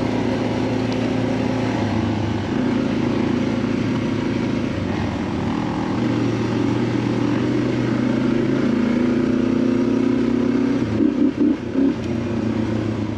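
Dual-sport motorcycle engine heard from the saddle, running at a steady trail speed. Its pitch steps up and down several times with throttle and gear changes, and the level wavers briefly near the end.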